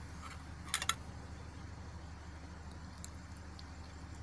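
A stainless steel ladle clinks against a steel vessel while serving rasam: a quick double clink just before a second in, then a few faint ticks, over a steady low hum.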